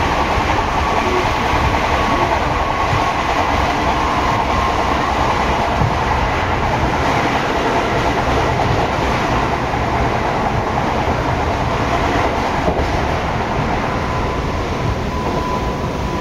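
Seibu 6000 series electric train with Hitachi GTO inverter traction, heard from inside the car over its underfloor equipment: steady running noise of wheels on rail with a thin steady whine. The sound eases slightly near the end.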